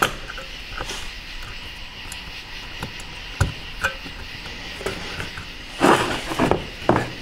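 Small metal clicks and taps as a retaining clip is worked into a valve body bore on a 4L60 transmission, with a sharper knock about three and a half seconds in and a louder clatter near the end.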